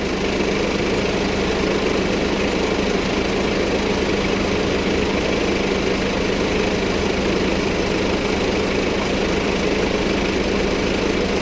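Diesel engine idling steadily, with a constant low hum and even rumble.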